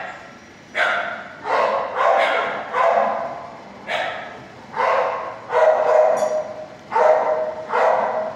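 A dog in a shelter kennel barking over and over, about ten barks with short gaps between them.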